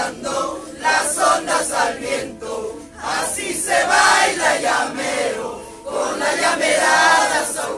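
A crowd of voices singing or chanting together, in short repeated phrases at first, then in longer held notes.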